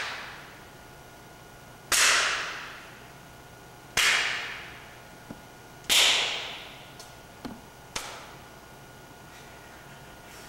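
Sharp bare-hand slaps of body percussion: three loud slaps about two seconds apart, each ringing out in an echoing room for about a second, then a few lighter slaps and taps.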